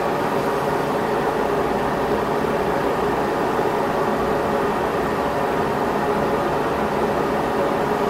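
Steady hum and hiss of a running fan, even in level with no breaks.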